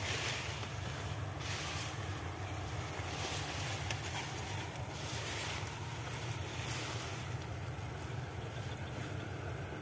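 Wind buffeting the microphone as a steady low rumble, with repeated rustling swishes every second or two as a person pushes on foot through tall, dense swamp grass; the swishes thin out near the end.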